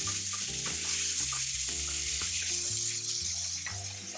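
Chicken pieces sizzling steadily in hot oil in a small karahi, a deep round wok-like pan, as they are stirred and turned with a wooden spatula. They are being seared until the meat turns white, before the spices go in. Soft background music plays underneath.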